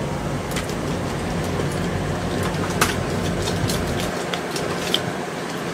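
Chewing with sharp mouth clicks and smacks, a handful of separate ticks, over a steady low hum that drops away about four seconds in.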